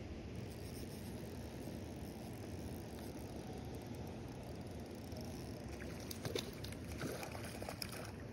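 Steady low wind rumble on the microphone by the water, with a cluster of clicks and splashy rustling in the last two or three seconds.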